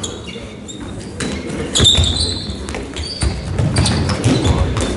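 Handballs bouncing and slapping on the floor of a large sports hall and on hands as they are passed, in a quick run of sharp strikes with echo, and a brief shoe squeak about two seconds in.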